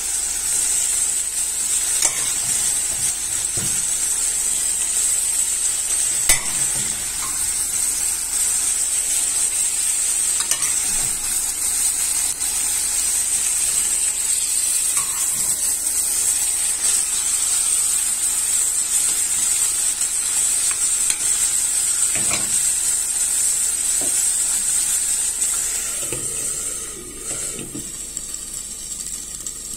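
Meat and tomato-pepper sauce sizzling as they fry in a pot, with a spatula scraping and knocking against the pot while the meat is added and stirred. The sizzle quietens near the end as a lid goes on the pot.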